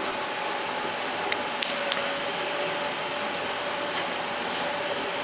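Steady hum and hiss of trout-hatchery equipment, with a faint steady tone running through it. Three light clicks come a little over a second in.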